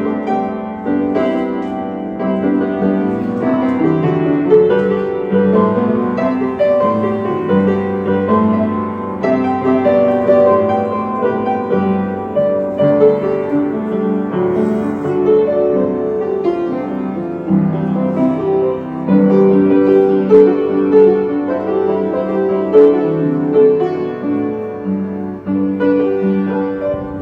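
Piano music: a keyboard playing chords and a melody without pause.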